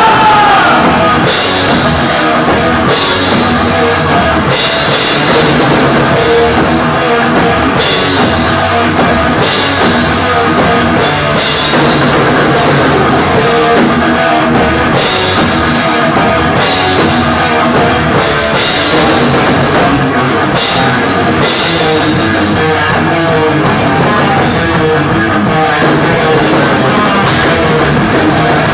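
Thrash metal band playing live and loud: a drum kit driving the song with heavy cymbal accents about every second and a half, over electric guitars. The cymbal accents drop out about three-quarters of the way through.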